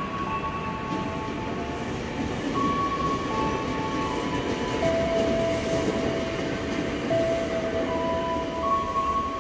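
Tokyo Metro 6000-series electric commuter train running past and pulling away: a steady rumble of wheels on the rails that grows louder about two and a half seconds in. Over it, sustained humming tones hold and then step to a new pitch every second or two.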